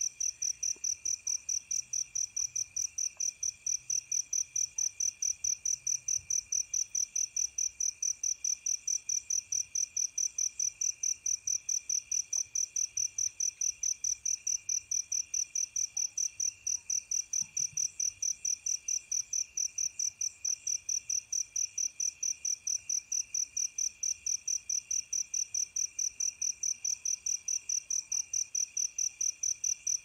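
Crickets chirping at night: a loud, high, evenly pulsing chirp about four times a second that keeps going without a break, over fainter trills from other insects.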